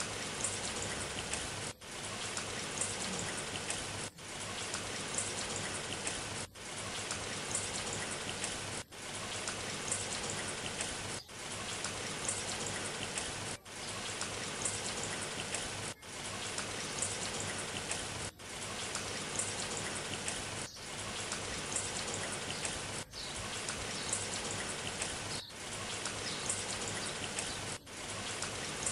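Rain sound effect: a steady patter and hiss of rain on a surface, looped, dropping out briefly about every two and a half seconds where the loop restarts.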